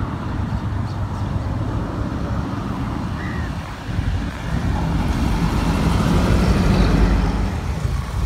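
Low rumble of an approaching Chinese-built ZCU-30 diesel-electric locomotive heading an express train, growing louder about halfway through as it closes in.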